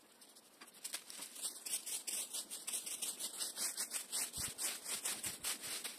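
Rake scraping through dry fallen leaves and over the ground in quick repeated strokes, starting about a second in.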